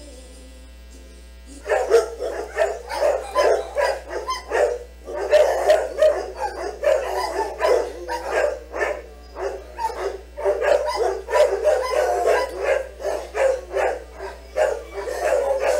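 Dog barking in a fast, unbroken string of barks, about three a second, starting about two seconds in, with short pauses around five and ten seconds in.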